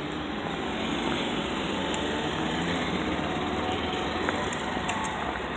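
Steady city street noise: an even low rumble of traffic.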